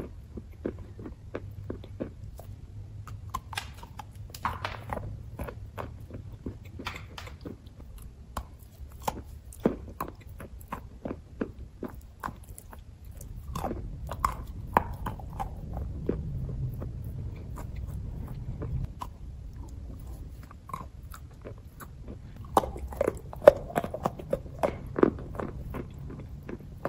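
Chalk being bitten and chewed close to the microphone: a steady run of irregular, sharp crunches, with a louder cluster of bites near the end.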